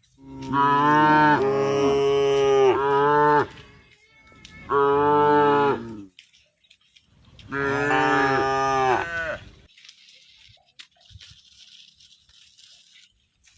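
Cow mooing: three long, loud moos, the first about three seconds long, each bending down in pitch at its end.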